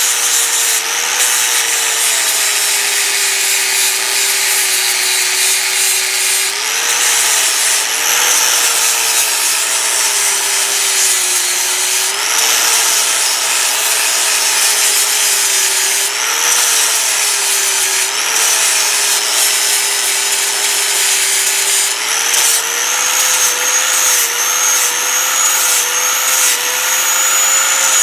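Electric angle grinder with a sanding disc sanding a carved wooden pumpkin: the motor runs steadily under the rubbing of abrasive on wood. Its pitch drops each time the disc is pressed into the wood and picks up again as it is eased off, several times over.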